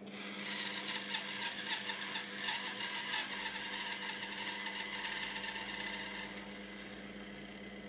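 Charnwood B250 bandsaw running with a steady motor hum while its blade cuts into a white melamine-faced chipboard board; the cutting noise eases off about six seconds in, leaving the motor running on its own.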